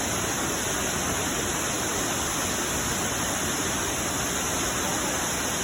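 Waterfall pouring, a steady rushing noise of falling water.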